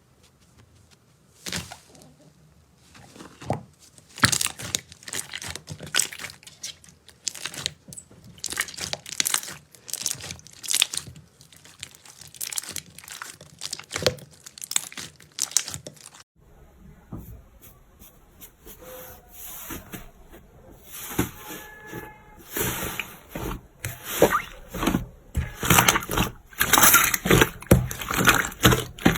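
Slime being squeezed and pressed by hand, giving irregular sticky pops and crackles. About halfway through it switches to a different batch with denser, louder crackling.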